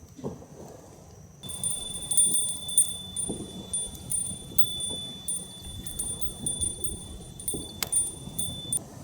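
Wind chime ringing, a steady high tone with repeated light clinks, starting about a second and a half in and stopping just before the end.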